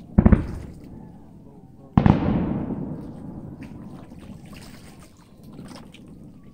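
Two aerial firework shells bursting about two seconds apart, each a sudden loud bang; the second is louder and trails off slowly over a couple of seconds.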